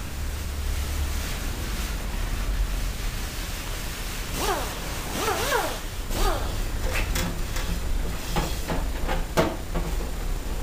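A hatchback tailgate being lifted open and lowered, with squeaking that rises and falls for a couple of seconds about halfway through, followed by a few light clicks and knocks. A low hum runs underneath.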